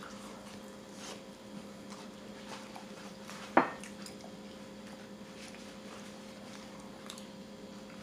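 Quiet eating sounds: chewing and hands handling pupusas in foil and plastic wrap, over a steady low hum. One short sharp click about three and a half seconds in.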